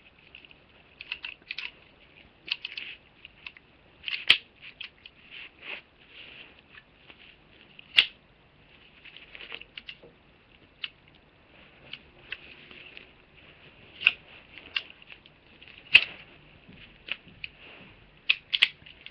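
A scatter of irregular clicks, taps and knocks of handling noise on a small microphone. Three sharper, louder clicks stand out among them.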